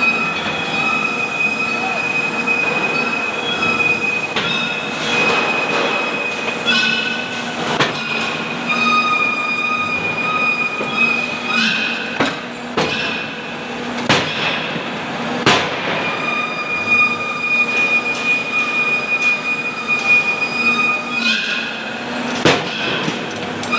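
Hammer-forging shop machinery: a steady high-pitched squealing whine that steps to a different pitch now and then, broken by a handful of sharp metal blows.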